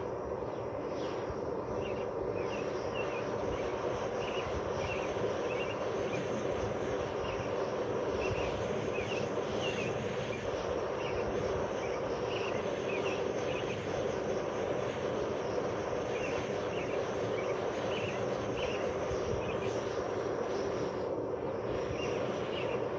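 Outdoor background: a steady noise throughout, with short high chirps repeating about once or twice a second, like insects or birds calling.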